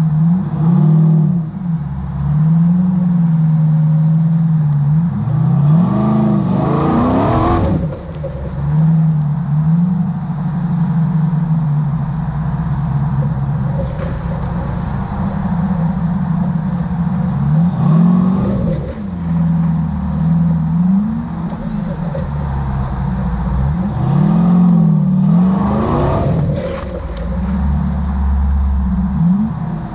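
Rock bouncer buggy's engine under load on a steep rock climb, running with a wavering pitch. The revs sweep up sharply and drop back in three bursts: a fifth of the way in, past halfway and near the end.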